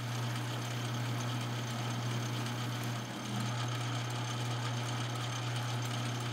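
Small metal lathe running steadily with its four-jaw chuck spinning: a steady low motor hum with an even hiss over it, dipping briefly about three seconds in.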